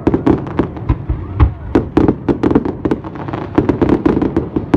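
Fireworks display going off: a rapid, dense run of sharp cracks and pops, several a second, mixed with a few deeper booms.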